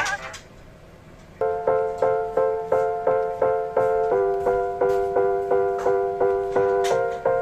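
Background music: a keyboard playing short repeated chords, about three a second, that come in after a brief lull and change chord partway through.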